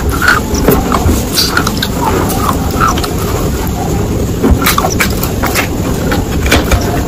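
Close-up crunching of a slab of dry clay being bitten and broken, with several sharp cracks over a steady rough grinding noise.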